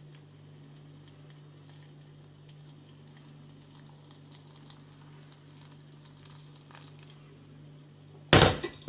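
Freshly boiled water pouring from a glass electric kettle into a paper instant-noodle bowl, a faint steady splashing hiss. Near the end, a sudden loud clunk.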